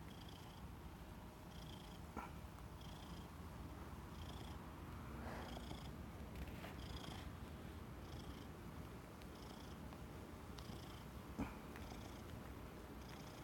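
Domestic cat purring steadily, with a faint higher hiss repeating a little faster than once a second. A few soft clicks, the clearest about eleven seconds in.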